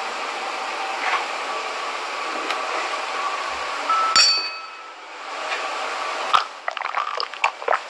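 A wine glass clinks once, sharply, about four seconds in, with a brief ringing tone, over a steady hiss. After that come scattered small clicks and taps of the glass being handled.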